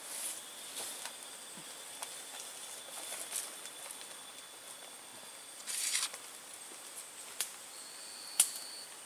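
Footsteps and rustling in dry forest leaf litter, with a short rustle about two-thirds through and scattered sharp clicks and snaps, the loudest near the end. A faint steady high-pitched whine runs underneath.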